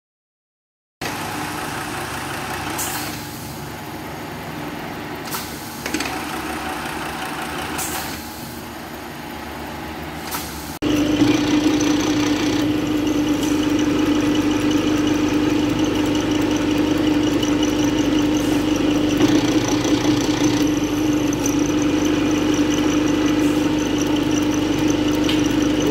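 Workshop background noise with a few short clicks and knocks. Then, from about eleven seconds in, an AGME RA radial riveting head's electric motor runs with a steady, loud hum.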